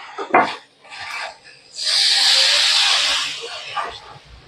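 A little water poured into a hot steel wok of spiced potato and cauliflower filling, sizzling loudly for about a second and a half. It is preceded and followed by a few light knocks and scrapes of utensils against the wok.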